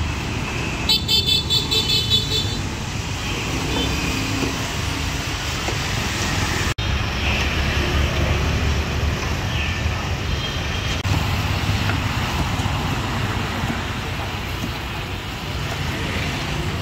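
Steady street traffic rumble from passing vehicles. About a second in, a vehicle horn toots about six times in quick succession. A brief dropout cuts the sound a little before halfway.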